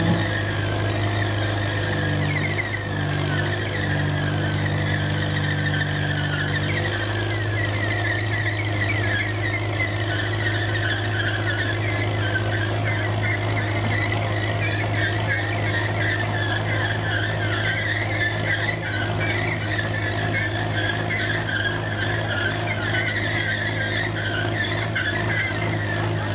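Old farm tractor engine running steadily under load while dragging a sled of concrete blocks, with a wavering, chattering high squeal from the pull across the concrete pad.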